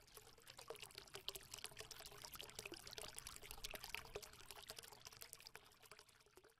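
Faint crackling fizz, a dense run of tiny clicks like trickling liquid, that swells in the middle and fades out near the end.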